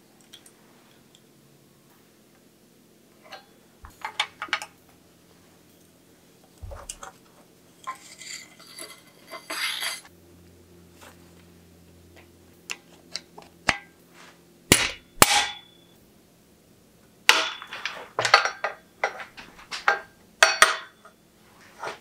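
Metal bicycle parts clinking and knocking as they are handled and tapped at a workbench: scattered light clicks, a short rattle a little before halfway, two sharp knocks about halfway through, and a quick run of knocks and clinks near the end.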